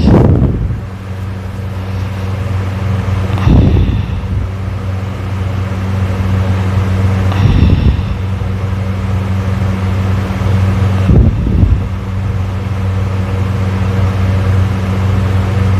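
A person snoring loudly, one snore roughly every four seconds, four in all, over a steady low hum.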